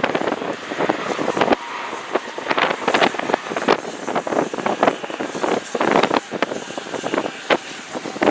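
Wind buffeting the microphone in irregular gusts, over the steady noise of a Ryanair Boeing 737 MAX's jet engines as it moves along the runway.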